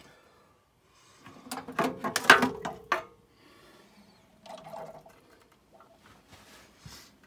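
Water splashing and gurgling for about two seconds as a Viessmann boiler's rubber hose is rinsed out into a sink, washing out black sludge from a system that was never flushed. Fainter short knocks and rustles follow.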